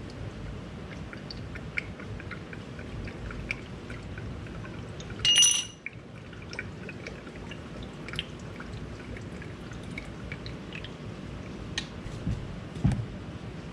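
Small metal parts and tools being handled on a workbench: scattered light clicks and taps, one loud ringing metallic clink about five seconds in, and two low thuds near the end, over a steady background hiss.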